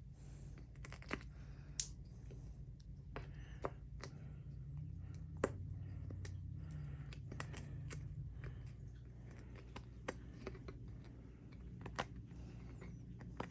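Hand chisel picking and scraping at MDF to cut out a recess for a bolt head, giving irregular light clicks and scrapes over a low steady hum.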